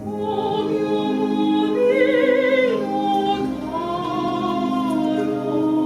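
Operatic singing with a wide vibrato, long notes held and slowly changing pitch over a sustained accompaniment.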